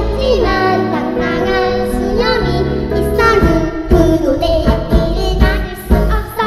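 Two young girls singing a cheerful children's song into handheld microphones over backing music with a steady beat.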